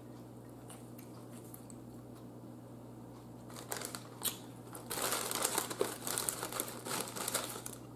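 A Lay's potato chip bag crinkling as it is handled and pulled open. The first few seconds are quiet, a few crackles come about halfway in, and the crinkling gets dense near the end.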